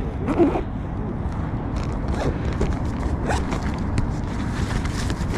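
Steady low outdoor rumble with scattered light rustling and clicks of things being handled, and a brief voice sound about half a second in.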